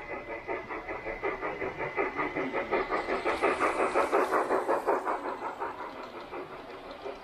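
Large-scale garden model train running past on its track, its wheels making a fast, even clicking rhythm that grows louder as the cars pass close and then fades as they move away.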